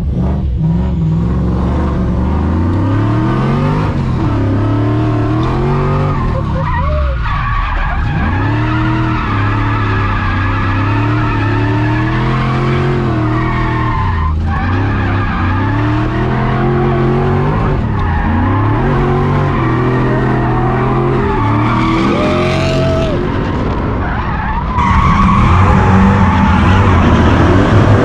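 V8 engine of a drift car (a Nissan S13 with a swapped-in Lexus 3UZ V8), revving up and falling back over and over as the car is held in a slide, with tyres skidding. It gets louder near the end.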